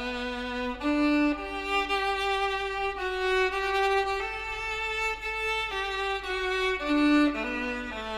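Background music: a slow violin melody of long held notes that step from one to the next about once a second.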